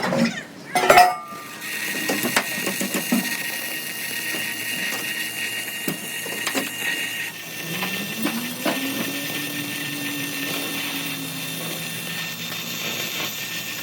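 Workshop machinery running: a knock about a second in, then a steady high whine that stops about seven seconds in, then a motor tone rising and holding, with scattered clicks.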